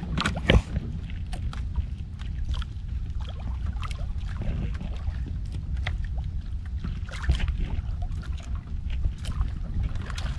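Water lapping against the hull of a small wooden outrigger boat at sea, with wind rumbling on the microphone and scattered light knocks and ticks.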